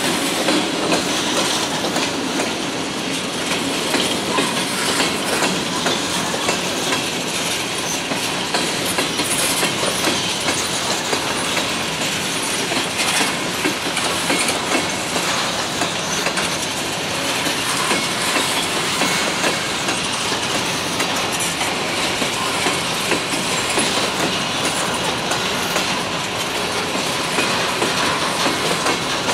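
Steel wheels of a freight train's covered hopper cars rolling past close by: a steady, loud rolling rumble with repeated clickety-clack as the wheels pass over rail joints.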